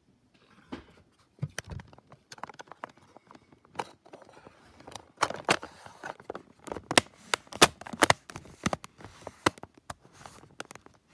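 Irregular clicks and knocks of small hard objects being handled, coming thicker and louder in the second half.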